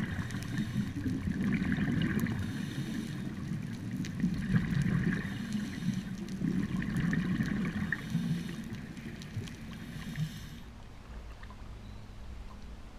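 Underwater sound through a GoPro's waterproof housing: a scuba diver's exhaled bubbles rumbling and gurgling in surges every couple of seconds. About ten and a half seconds in the bubbling stops and only a softer low wash of water remains as the camera nears the surface.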